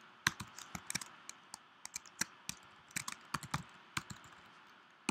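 Typing on a computer keyboard: irregular keystrokes, several a second, with short pauses between runs.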